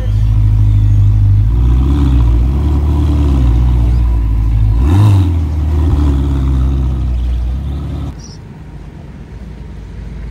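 A car engine running at a deep, steady idle, with one short rev that rises and falls about halfway through. The engine sound stops abruptly about eight seconds in.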